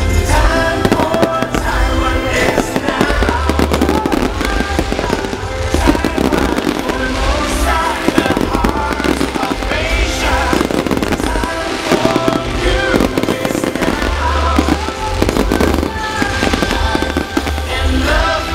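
Fireworks bursting many times over, with loud music playing alongside.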